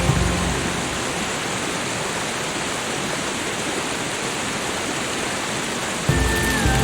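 Steady, even wash of falling water, like rain or a waterfall. Soft background music fades out just after the start and returns with held tones about six seconds in.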